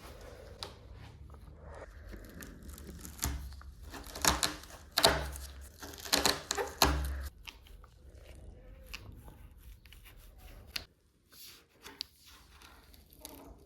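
Crunching and crackling from a water-damaged surfboard's cracked fiberglass being handled, with a cluster of sharp crunches in the middle and faint scattered crackles after.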